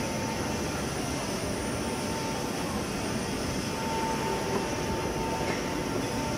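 Roller-type veneer dryer line running: a steady industrial machine drone with a faint, steady high whine over it.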